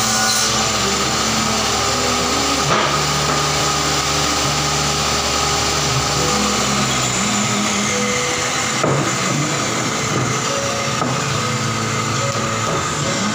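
Table saw running as wood strips are fed through it, a steady machine noise; its low hum stops about seven seconds in.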